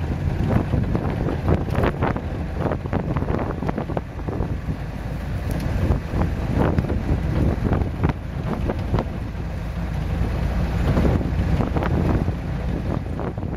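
Wind buffeting the microphone of a vehicle driving along a rough dirt track, over a low engine rumble, with frequent short knocks and rattles.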